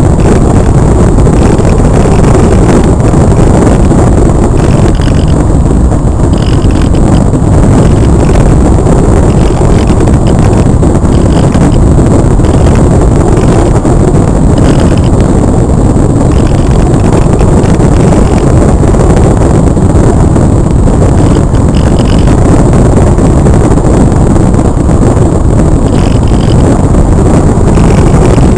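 Loud, steady rush of wind on the onboard camera's microphone as the Multiplex Cularis RC glider flies.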